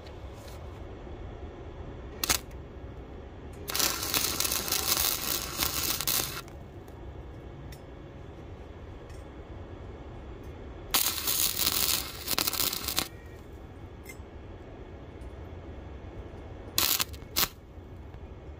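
Harbor Freight flux-core wire welder's arc crackling as it tacks slotted steel strut channel, in two runs of two to three seconds each, with a few brief sharp snaps between them.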